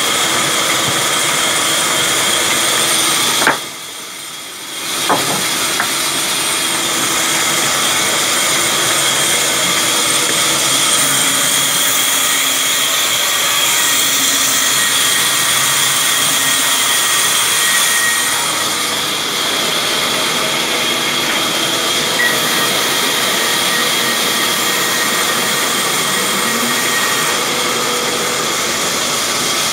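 Sawmill band saw running, a loud steady whine over hiss, briefly dropping away about three and a half seconds in before coming back.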